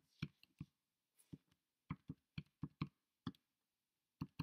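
Keys being pressed on a Texas Instruments scientific calculator: about fifteen faint, short plastic clicks at an uneven pace.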